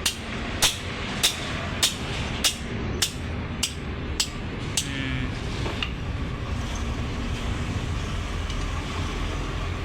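Sharp clicks from hand-tool work on a car engine, evenly spaced a little under two a second, stopping about five seconds in, over a steady low rumble.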